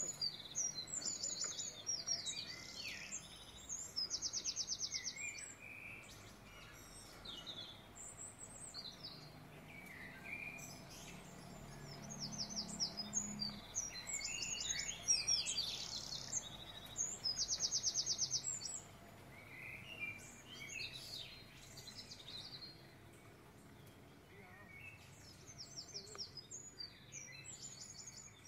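Several birds chirping and trilling, with short high chirps and a few fast rattling trills, over a faint steady background hiss.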